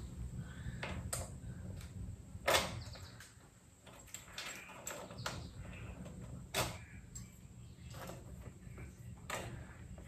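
Scattered clicks and knocks as the battery pack on an e-bike's down tube is handled and locked into place, the sharpest about two and a half seconds in and again past six seconds, over a faint steady low hum.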